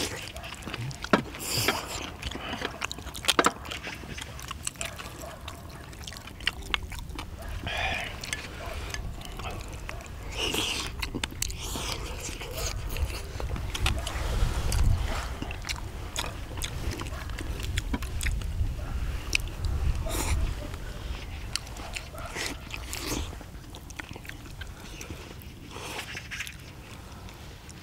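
People eating spicy braised chicken with beef intestines: chewing, with scattered clicks of chopsticks and spoons against plates. Near the end metal tongs scrape on the cast-iron cauldron-lid griddle. A low rumble runs underneath.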